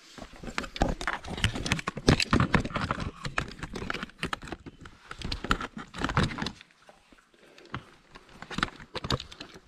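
Footsteps on loose, stony ground: a quick, irregular run of crunching steps and scrapes that eases off about seven seconds in, with a few more steps near the end.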